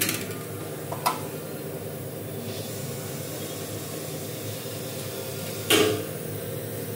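Steady machine hum, with a sharp metallic click about a second in and a louder, short metallic clatter near the end.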